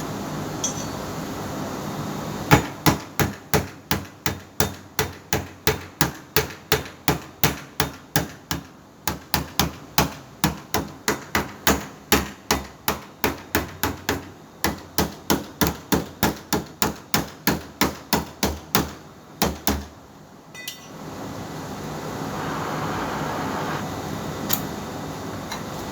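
Hammer striking sheet metal in tinsmith body repair, steady blows about two to three a second, with two short breaks. The hammering stops a few seconds before the end, and a steady hiss follows.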